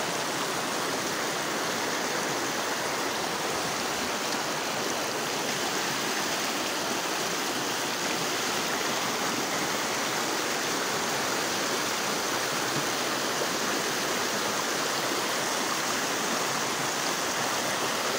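Floodwater flowing fast, a steady rush of moving water.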